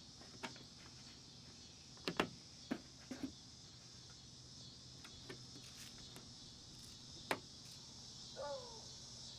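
High-pitched, steady buzz of a cicada chorus, with a scatter of sharp clicks and knocks from handling. A short falling chirp comes near the end.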